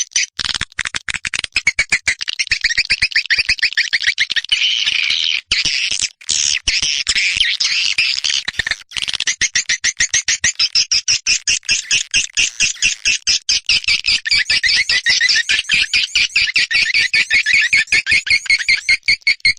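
Swiftlet lure call: a recording of edible-nest swiftlet twittering, played to draw swiftlets into a swiftlet house to roost and nest. Rapid, high chirps repeat continuously at a fast, even rate.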